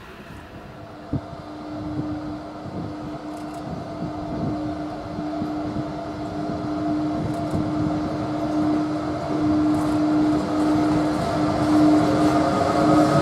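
ZSSK class 163 electric locomotive drawing a passenger train in along a platform, a steady whine over rumbling wheels that grows louder as it approaches.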